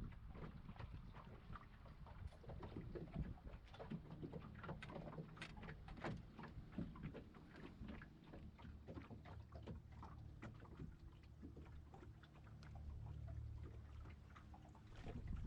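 Faint scattered taps and knocks aboard a small fishing boat, over a low rumble that swells briefly near the end.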